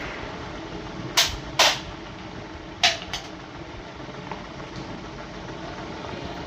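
Motorcycle parts and tools being handled during a service: four short, sharp noises, two about a second in and two near three seconds, over steady background noise.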